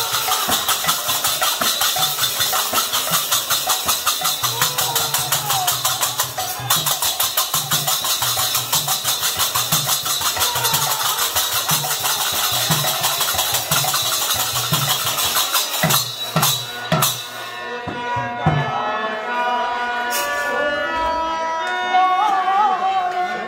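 Kirtan music: a fast, driving rhythm of hand cymbals and drum. It closes with a few hard strokes about sixteen seconds in, after which a sliding melody comes in over steady held notes.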